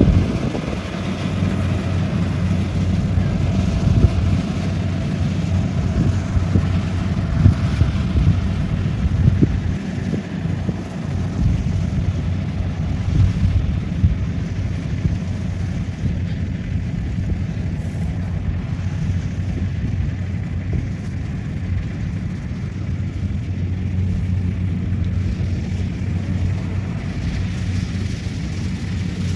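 Kubota combine harvester's diesel engine running steadily while it harvests rice: a continuous low engine hum.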